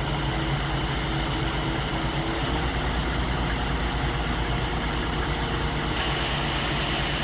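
Concrete mixer truck's diesel engine running steadily during the pour. A higher steady whine joins about six seconds in.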